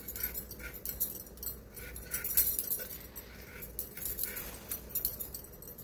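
A raw potato being peeled against a boti blade: short, irregular scraping strokes, a few a second, as the skin is shaved off.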